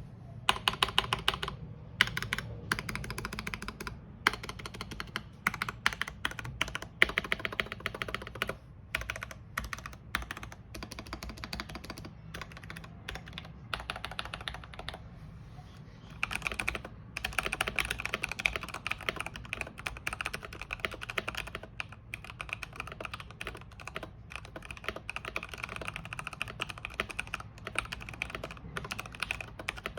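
Anne Pro 2 mechanical keyboard being typed on quickly: a fast, continuous run of key clicks and key-bottoming taps, broken by a few brief pauses.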